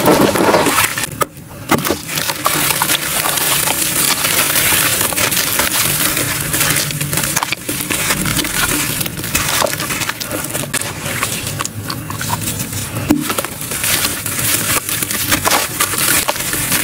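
Wet, gritty charcoal crumbled and squeezed by hand in water: dense crunching and crackling with wet squelching, dropping off briefly about a second in.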